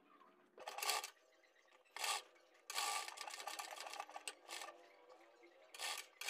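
Faint rustling and rubbing of fabric in short, irregular bursts as hands fold a gold piping strip over a stiff buckram-backed pattern piece and press it into place.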